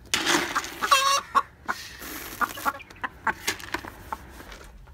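Hens pecking pellet feed from a plastic bowl: quick, irregular taps, with one hen clucking about a second in.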